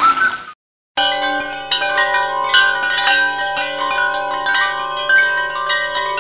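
Chimes ringing, many metal tones struck at irregular moments and overlapping as they sustain. They start about a second in, after a short gap that follows a hissy sound with whistling glides cutting off.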